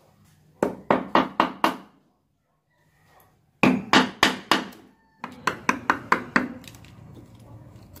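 A wood chisel struck with a hammer in quick runs of blows, about four or five a second, cutting into a mahogany door jamb to square out a drilled hole into a latch mortise. There are three runs of strikes with short pauses between them.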